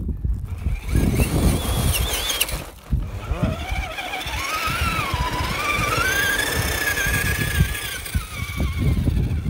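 Radio-controlled rock crawler's electric motor and gear drive whining under throttle, briefly about two seconds in and then for longer, the pitch rising, dipping, climbing again and falling off near the end. Gusting wind rumbles on the microphone underneath.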